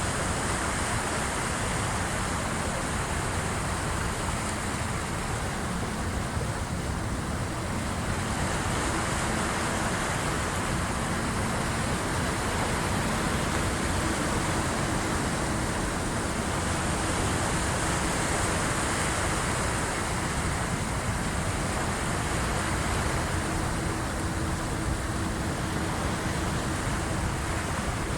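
Incoming-tide waves washing against the shore as a continuous roar of surf that swells and eases every several seconds. A faint steady hum runs underneath.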